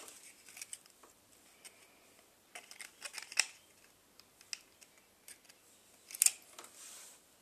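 Thin plastic bottle piece being handled against a popsicle-stick frame: irregular small clicks, crackles and taps, with the loudest pair of clicks about six seconds in.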